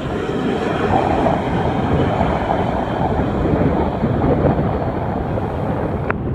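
Jet airliner engines running: a steady, dense rumbling noise with no clear pitch.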